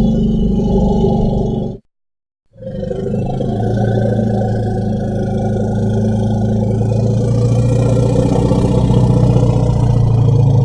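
Triceratops sound effect: a deep, rough, roaring bellow that cuts off about two seconds in. After a short silence a second, long, low bellow follows and holds steady.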